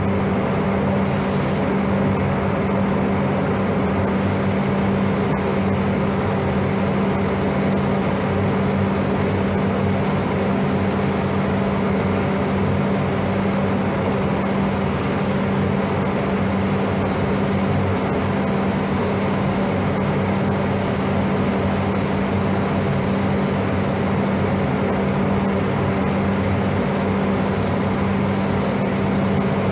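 Steady airflow noise of a spray booth's ventilation fans, a constant hum under an even rushing hiss.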